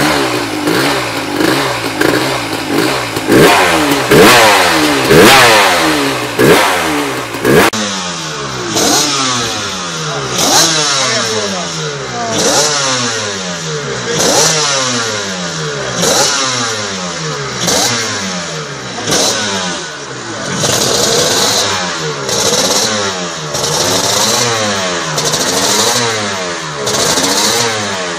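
A 500cc two-stroke motorcycle engine revving hard in rising sweeps. About eight seconds in, the sound changes to a Honda RS500 two-stroke racing engine, revved in repeated blips roughly every two seconds, each rising and falling in pitch.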